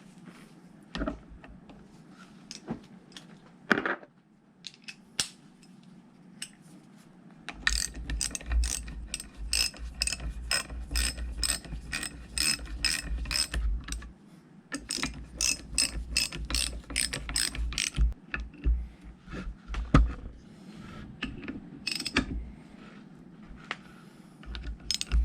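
Ratchet wrench clicking in quick runs, about four clicks a second, as bolts are run down to fasten a hydraulic pump to its backing plate. Scattered knocks of tools and metal parts come before and after the runs.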